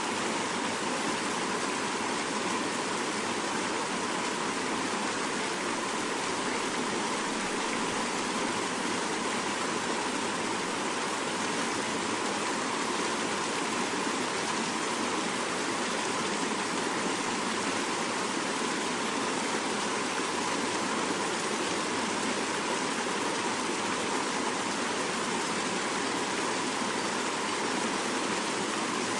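Fast-flowing mountain river rushing steadily, a constant dense water noise with no breaks.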